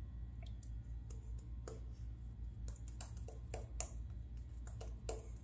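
Shavette straight razor scraping through lathered stubble: faint, irregular crackling clicks as the blade cuts the whiskers, over a steady low hum.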